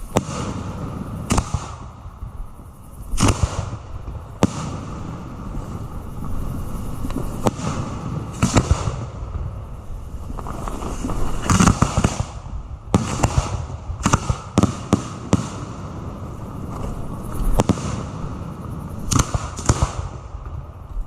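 Aerial fireworks going off close by at the firing site of a display: shells launching and bursting as a steady run of sharp reports at irregular intervals, some in quick clusters, over a constant rumble.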